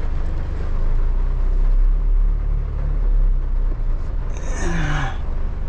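Vehicle engine running low and steady, heard from inside the cab while the heavily loaded vehicle backs up slowly, with rain hissing on the windscreen and body. A brief falling-pitch sound about four and a half seconds in.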